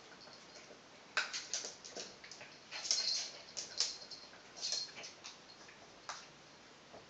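Animals' claws clicking and scuffing on a laminate wood floor as they move about at play: irregular quick clicks from about a second in, busiest around three to five seconds, dying away after about six seconds.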